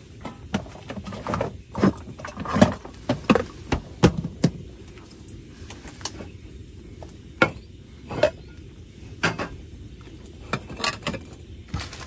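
A string of irregular knocks and clinks of hard objects being handled and set down, about twenty in all, most of them bunched together in the first half.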